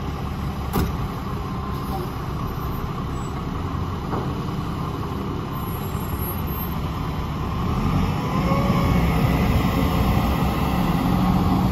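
Mack LE front-load garbage truck and a wheel loader running, their diesel engines steady at a low idle, growing louder about eight seconds in as the truck pulls forward.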